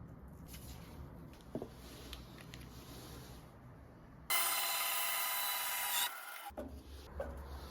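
Pen-making workshop sounds: light rubbing on a wooden pen blank over a low hum, then about four seconds in an abrupt cut to louder machine noise with a steady whine, broken off briefly near six seconds.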